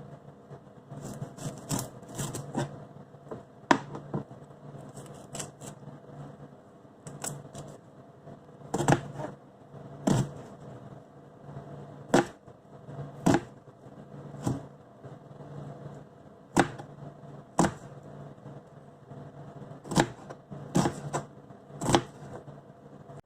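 Sharp, irregular clicks and knocks, roughly one every second or two, over a steady low hum.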